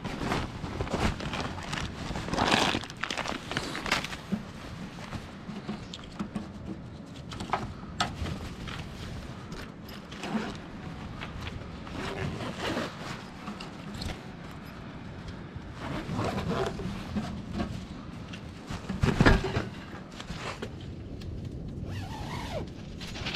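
Camping kit being unpacked by hand from a rucksack: nylon stuff sacks and bags rustling and scraping, with a zip, and several sharp knocks as gear is set down on pebbles.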